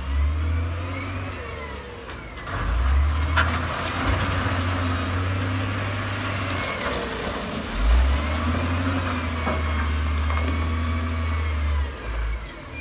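Heavy diesel construction machinery running and revving at work, with a deep drone that cuts in and out every few seconds.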